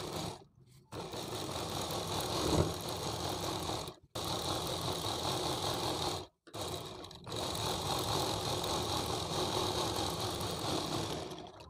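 Sewing machine running steadily, stitching a seam along the edge of the fabric, stopping or cutting out briefly three or four times.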